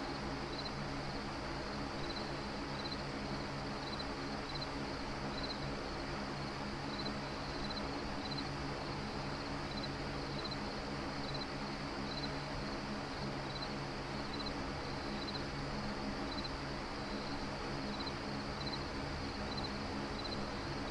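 Steady ambient hum and hiss with a cricket chirping over it: short high chirps, often in pairs, about once a second.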